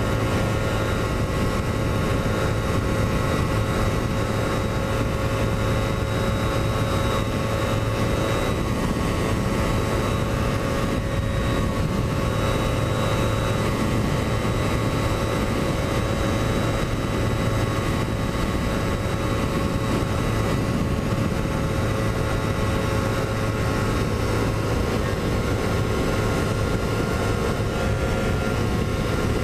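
Remapped Kawasaki Ninja 250R's parallel-twin engine held flat out at a steady high pitch, heard from on board at about 145 km/h, with steady wind rush over the microphone.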